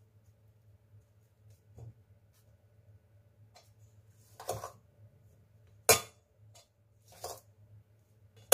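Metal spoon clinking and scraping against a stainless steel pot as cookie dough is scooped out: a handful of separate clinks and scrapes, the sharpest about six seconds in, over a faint steady hum.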